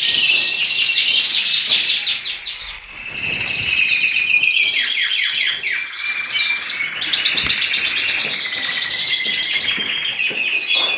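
Many caged finches in a birdroom singing and chirping at once: overlapping high songs full of rapid trills and twitters, without a break.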